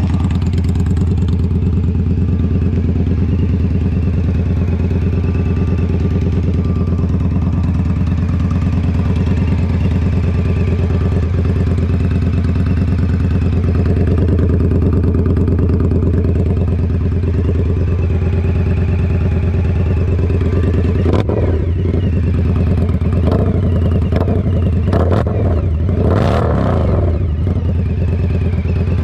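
Indian Scout Sixty's liquid-cooled V-twin idling steadily through an upgraded aftermarket exhaust, with a deep, even note. A few short rough bursts break over it in the last several seconds.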